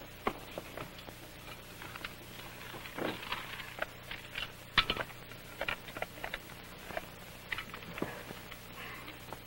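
Small objects being handled on a dresser top: an irregular scatter of light clicks, clinks and knocks, the sharpest about five seconds in, over a steady low hum.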